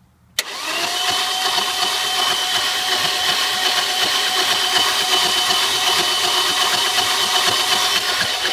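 Audi A4's engine being cranked by its starter motor, which engages with a sharp click about half a second in and settles into a steady whine over fast, even pulsing. The engine turns over without firing: a no-start.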